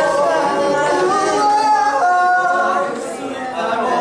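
Several young men's voices singing together without accompaniment, with a few notes held steady about halfway through.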